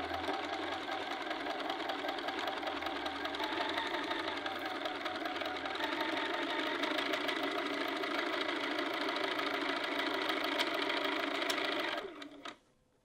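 Bernina sewing machine running steadily as it stitches a straight seam through the fabric, then stopping suddenly about a second before the end.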